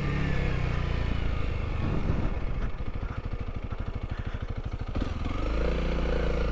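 Honda CRF300L's 286 cc single-cylinder four-stroke engine, first running low with an even putter, then picking up to a steadier, higher engine note as the throttle opens about five seconds in.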